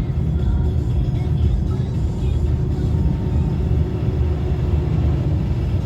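Steady low rumble of road traffic in a road tunnel, with faint thin high tones drifting above it.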